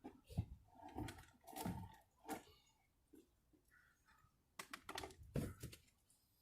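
Faint, irregular light clicks and knocks, in two clusters with a quiet gap between.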